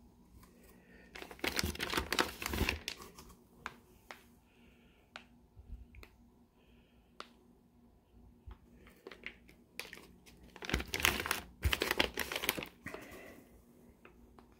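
Plastic fish-shipping bags crinkling as they are handled. There are two longer bursts, about a second and a half in and again about eleven seconds in, with scattered light clicks and rustles between them.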